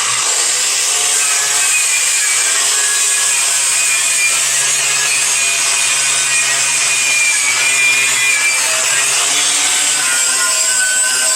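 Angle grinder running against the steel of an exhaust pipe and muffler joint, a loud steady grinding with a faint whine that wavers in pitch as it bears on the metal.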